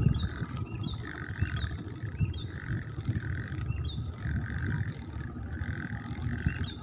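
A bird chirping over and over, a short high call about once a second, over a steady low rumble.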